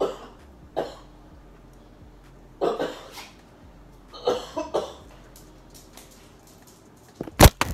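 A few short cough-like bursts, then a sharp clatter and several knocks near the end as a phone falls off its stand.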